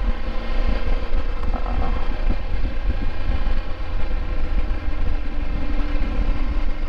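Wind buffeting a helmet-mounted microphone over the steady drone of a Triumph Tiger 1200's three-cylinder engine while riding at a constant speed.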